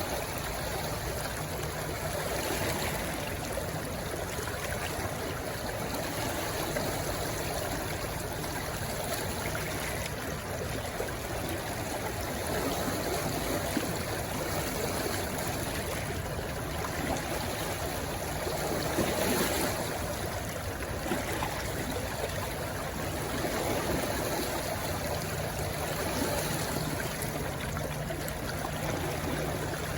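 A stream rushing steadily where it flows into the sea. The water noise is continuous, with a brief swell in loudness about two-thirds of the way through.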